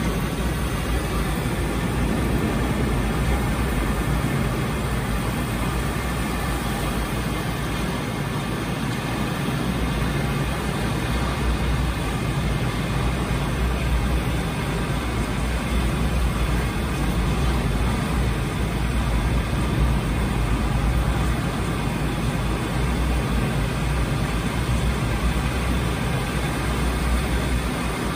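Steady, loud rush of a heavy waterfall with a deep rumble underneath, the soundtrack of a projected video artwork of cascading water heard in a large dark hall.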